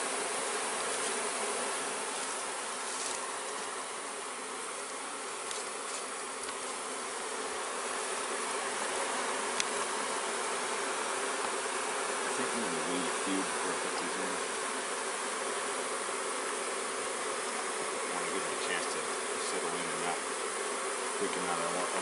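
Honeybees buzzing steadily around a hive, a freshly hived swarm fanning at the entrance and flying close about the box. The fanning is the sign that the swarm has taken to its new hive.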